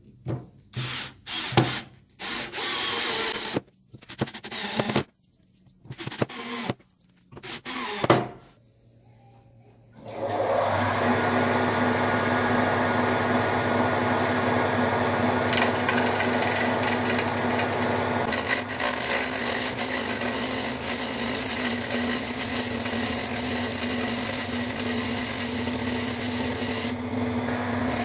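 A power drill-driver running in short bursts, driving screws through a steel hub flange into a wooden block. About ten seconds in, a homemade wood lathe starts and runs steadily with a constant motor hum, spinning a wooden disc.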